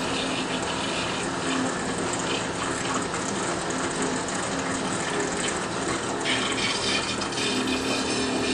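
Distek VIP 4400 dissolution vessel washer spraying water from its wash nozzle into a glass dissolution vessel, a steady rushing hiss over a low pump hum. The hiss gets brighter about six seconds in.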